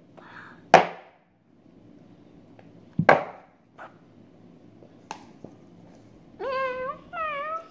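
Plastic cups knocked down on a table: a few sharp knocks a couple of seconds apart. Near the end a child sings or calls out a short tune.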